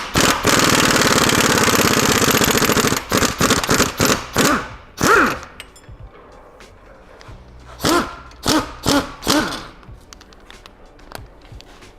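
Air impact wrench hammering: one long run of about three seconds, then several short bursts, each winding down in pitch as the tool is released.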